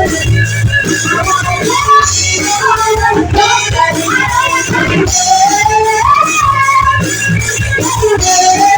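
A live band playing a song: a singing voice carries a gliding melody over drums with repeated cymbal hits.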